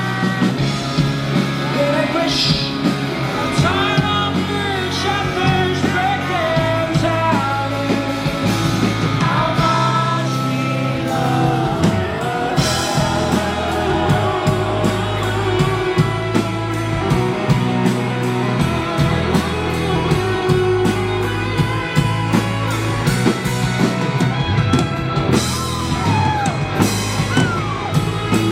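Live rock band playing at full volume: a singer's voice over guitar, bass and drums keeping a steady beat.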